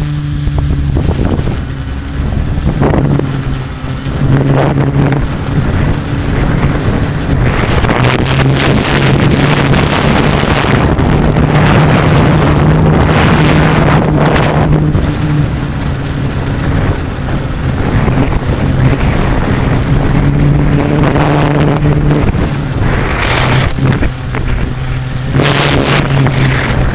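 Multirotor drone's LD Power MT4010 475 KV motors and 13-inch carbon propellers humming steadily in flight, heard from the onboard camera. Wind rushes over the microphone in gusts that swell and fade, loudest near the middle and near the end.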